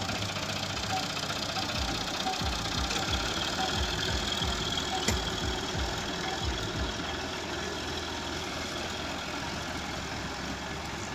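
Tractor's diesel engine running at low revs while it tows a car on a chain, with a steady low knocking throb.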